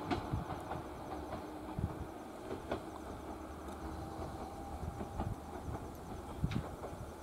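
Electric commuter train approaching slowly, a low steady running rumble with a few sharp clicks scattered through it.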